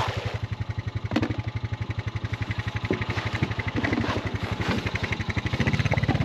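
Small engine running with a steady low putter. It grows louder and fuller about five and a half seconds in, as if taking on load, with a few light knocks over it.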